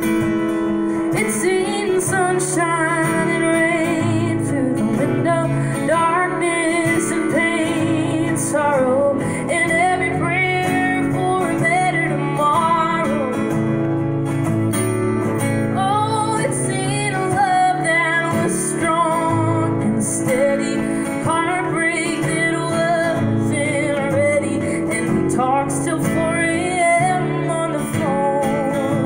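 A woman singing with vibrato to her own strummed acoustic guitar, a live solo performance of a slow folk song.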